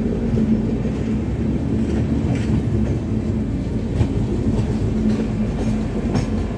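Indian Railways passenger train running just after pulling out of a station, heard from an open coach doorway: a steady rumble of the coaches with a low hum, and a few sharp clacks of the wheels over the rails.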